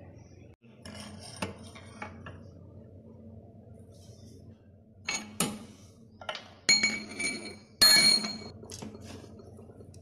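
Scattered metallic clinks and scrapes of a new brake pad being fitted by hand into a TVS Apache RTR 180's rear disc brake caliper. A few light clinks come about a second in, then a denser run of louder clinks with a brief metallic ring in the second half.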